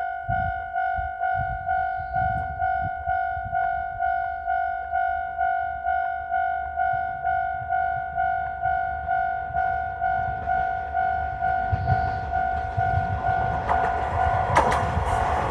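Railway level crossing alarm ringing, a two-tone chime repeating about twice a second. Over the last few seconds the Ibusuki no Tamatebako diesel railcar arrives at the crossing, its rumble and wheel noise growing louder with a few sharp clacks.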